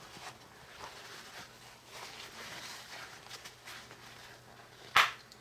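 Paper towel rustling and rubbing against a small wet plastic pod as it is wiped dry, then one sharp click about five seconds in.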